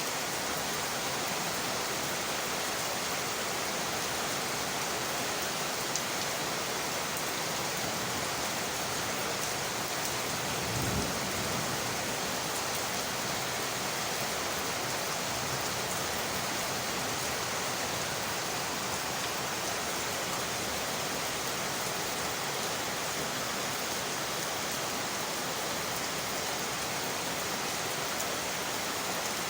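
Steady rain pattering on window glass, an even hiss throughout. A single sharp click comes about six seconds in, and a brief low thump about eleven seconds in.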